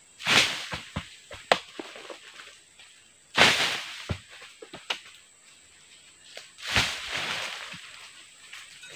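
Oil palm fruit bunches rolled down a slope, tumbling through dry fronds and leaf litter: three rustling crashes, each fading over about a second, about a third of a second in, at about three and a half seconds and near seven seconds, with sharp knocks between them.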